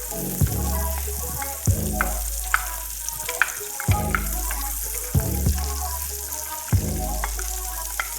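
Butter melting and sizzling in a saucepan, a steady hiss, under background music with a sustained bass and sharp drum hits every second or two.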